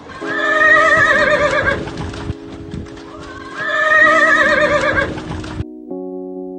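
A horse whinnies twice, each a long wavering call, with hooves thudding in mud beneath, over a steady held music chord. The field sound cuts off sharply near the end, leaving only a keyboard chord.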